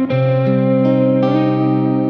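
Calm ambient meditation music: sustained, ringing notes over held low tones, a new note coming in about every half second.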